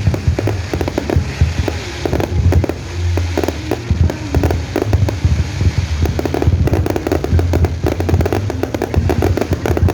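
Fireworks going off: a dense, continuous run of rapid bangs and crackles over deep booms.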